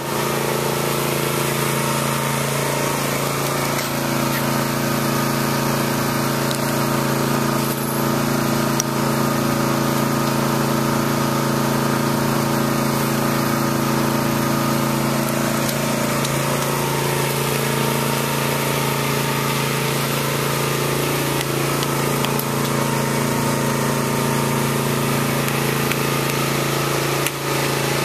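Small engine running steadily at a constant speed, an even drone that holds its pitch throughout.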